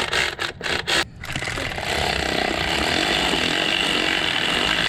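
Small power tool driving the distributor cap bolts home: a few short bursts, then a steady run from about a second in.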